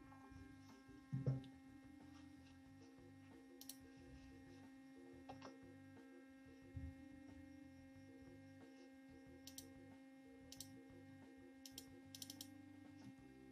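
Stepper motors of a small belt-driven laser CNC running faintly as the head moves, a low steady hum with shifting stepped tones. One knock about a second in, and a few light clicks in the second half.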